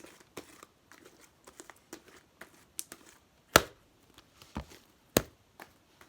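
Homemade slime being handled and stretched: scattered small crackles with a few sharp pops, the loudest about three and a half seconds in and another just after five seconds.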